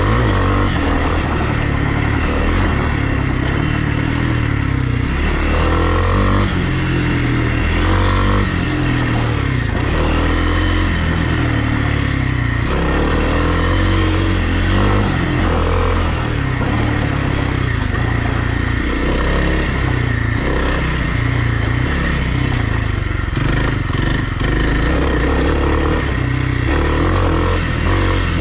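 Kawasaki KLX300R dirt bike's single-cylinder four-stroke engine running under load on a trail ride, the revs rising and falling again and again as the throttle is worked.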